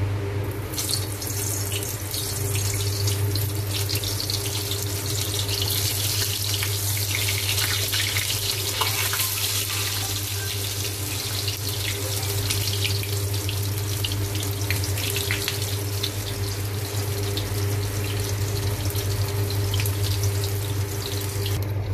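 Halved brinjal pieces frying in hot oil in a steel kadai: a steady crackling sizzle that starts about a second in as the pieces go into the oil, over a steady low hum.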